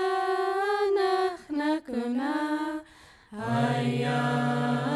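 Unaccompanied voices chanting in long held notes: a higher note is held for over a second, a shorter one follows, and after a brief pause about three seconds in a lower voice takes up a long held note.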